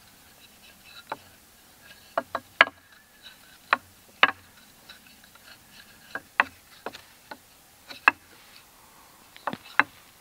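Sharp, irregular clicks and taps, some in quick pairs, as a cord is worked and pulled tight around a small wooden toggle stick lashed to a stick-and-log sled.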